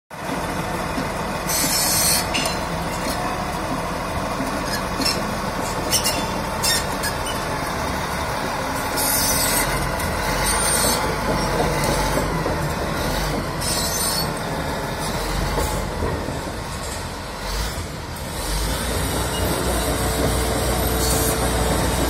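Caterpillar D8R crawler dozer on the move: its diesel engine runs steadily under the clank and squeal of the steel tracks, with scattered sharp metal clanks. The low engine rumble grows louder in the last few seconds as the dozer comes around.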